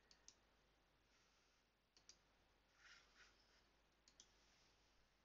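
Near silence with faint clicks of a computer mouse, coming in three quick pairs about two seconds apart.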